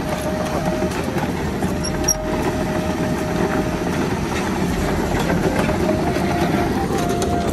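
Excavator on the move, its diesel engine running steadily, with a thin whine riding over the engine noise.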